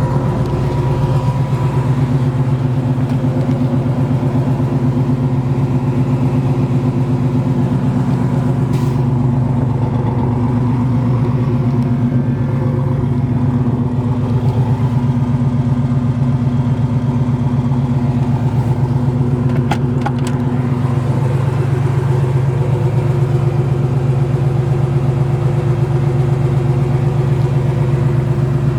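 1967 Chevrolet Chevelle's 396 big-block V8 idling steadily, its rapid firing pulses coming through headers and Flowmaster dual exhausts.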